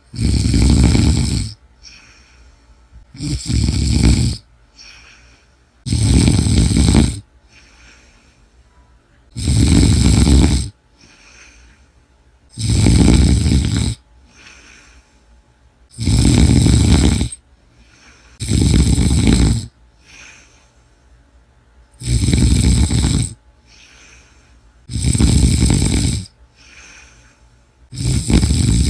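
A sleeping person snoring loudly: about ten long snores, each lasting a little over a second and coming roughly every three seconds, with softer breaths between them.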